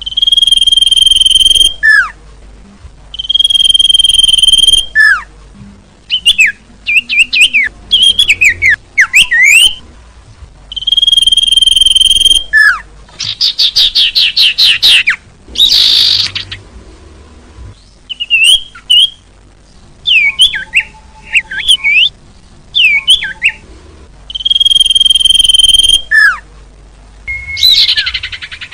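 Common iora song used as a bird lure: long whistles held on one high pitch, each ending in a quick downward note, alternating with bursts of fast, gliding chirps and trills.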